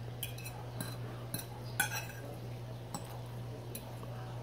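Cutlery clinking against a dish several times while eating, the loudest click about two seconds in, over a steady low hum.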